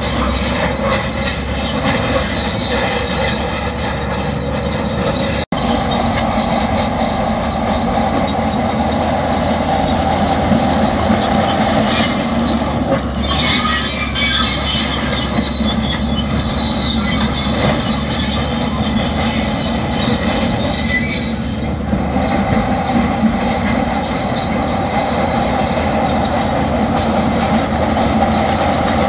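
Crawler bulldozer working, its diesel engine running steadily under a continuous squeal and clank of its steel tracks. The sound cuts out for an instant about five seconds in.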